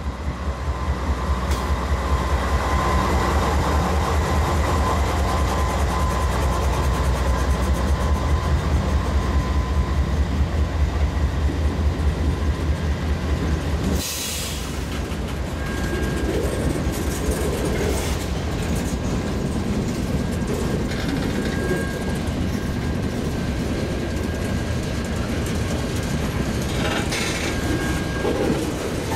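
Norfolk Southern diesel locomotives passing close with a deep, fast engine throb. About fourteen seconds in the engine sound drops away, and loaded tank cars roll by with the clickety-clack of wheels over the rail joints.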